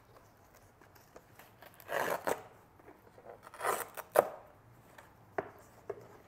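Handling noise as the straps holding a coiled rubber charging cable in a soft zip case are pulled open and the cable shifted: two short rasps about two and three and a half seconds in, a sharp knock just after four seconds, then a couple of light taps.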